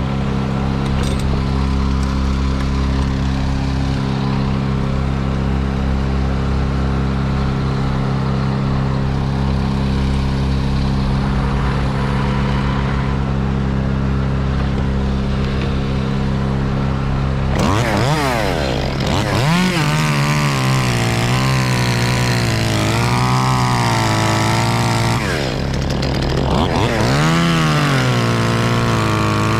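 An engine runs at a steady speed; about two-thirds of the way in a chainsaw joins, revved up and down again and again as it cuts.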